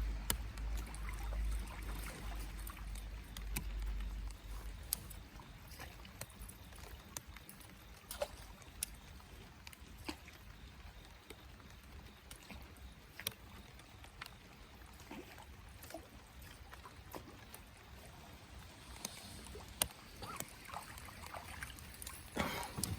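A jon boat drifting on the water: faint water lapping with scattered small clicks and knocks, and a low rumble in the first few seconds.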